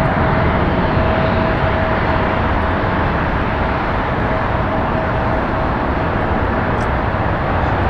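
Airbus A320-271N's Pratt & Whitney PW1100G geared turbofan engines at takeoff power during the takeoff roll: loud, steady engine noise with a thin steady tone running through it.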